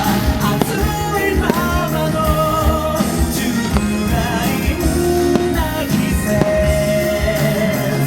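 Pop-rock song playing loudly, with a singing voice over a steady beat.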